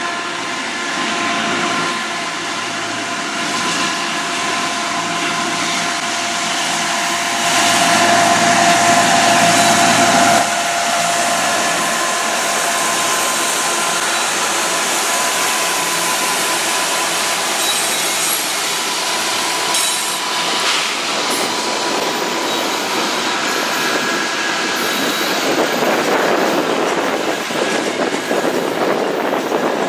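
Freight train passing slowly: two CN diesel locomotives working hard to pull the train, followed by covered hopper cars rolling by on the rails. A louder stretch of about three seconds comes around seven to ten seconds in.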